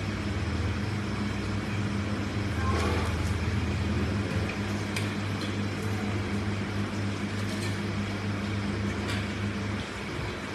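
Steady low mechanical hum throughout, with a few light clicks and plastic crinkles as a bag of dried fish and a thermos are handled.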